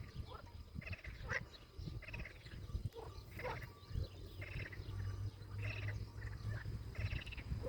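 Frogs calling: a repeating series of short pulsed croaks, roughly one a second, over a low rumble.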